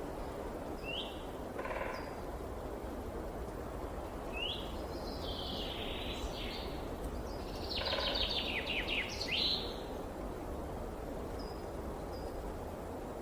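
Songbirds calling over the steady rush of flowing water: short whistled notes about a second in and again near four and a half seconds, then a quick run of falling notes around eight to nine and a half seconds.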